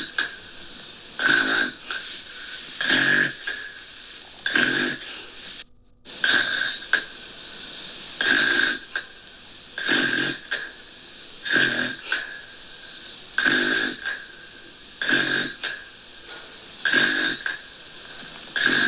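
Gentle snoring in an even rhythm, about a dozen snores spaced evenly through the stretch, with a faint steady hiss between them. The sound breaks off for a moment about six seconds in.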